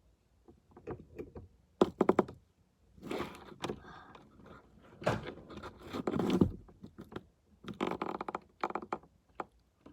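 A small electric siren being hooked to its battery: scattered scrapes and knocks with a few short crackling buzzes, about two seconds in and again near eight seconds, but no steady siren wail. The owner says the connection sparked.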